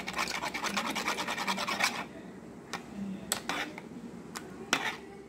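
Metal spoon scraping quickly around a plastic bowl, beating egg yolk into milk. The fast strokes stop about two seconds in, followed by a few single strokes.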